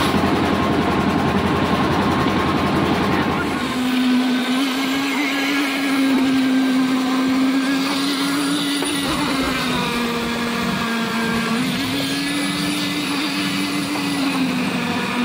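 Engine of a drum concrete mixer running with a heavy rumble. About four seconds in the sound changes abruptly to a steadier engine hum held at one pitch that dips and recovers a few times.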